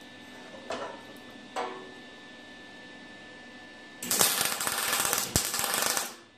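MIG welder tack welding steel frame rails: the arc crackles in a burst of about two seconds starting about four seconds in, with a brief break in the middle. Before it come two faint taps.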